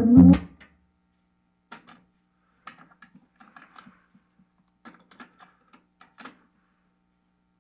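Music from the stereo cuts off just after the start, leaving faint scattered clicks and small knocks of equipment being handled over a faint steady low hum.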